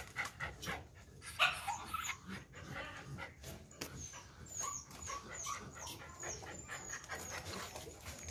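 Excited dog whining in a greeting: a run of short, high squeaky whimpers, about three a second in the middle stretch, with light clicks throughout.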